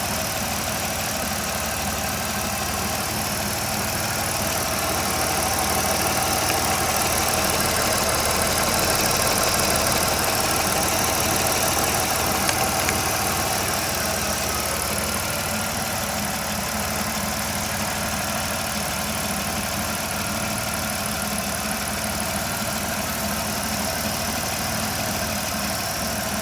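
A Chrysler 3.8-litre V6 idling steadily, with an engine flush mixed into the old oil.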